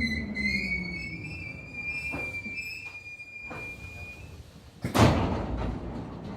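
Hankyu 3300 series train's traction motors whining down in pitch as the train slows, with a steady high brake squeal that ends about four seconds in as it stops. About five seconds in there is a loud thunk as the doors start to open.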